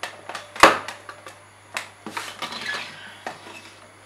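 Clear speaker cables being handled and untangled on a desk: a string of light clicks and knocks as the wires and their ends are moved. The loudest knock comes about half a second in, and a brief rustle of the wire follows around two seconds in.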